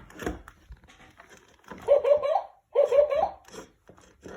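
Takara Good-night Teddy plush bear's electronic voice giggling twice in short, wavering bursts, with faint clicks of handling around them.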